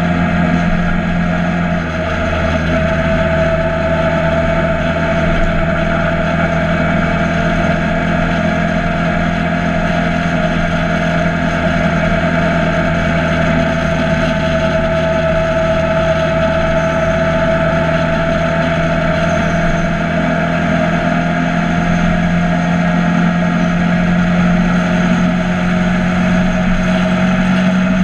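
Motorcycle engine running at a steady cruising speed under a haze of wind noise, its pitch drifting only slightly and rising a little near the end.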